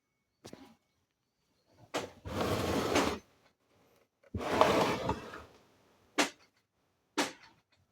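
Handling noises: a few sharp knocks and two scraping, rustling stretches about a second long each. No motor is running.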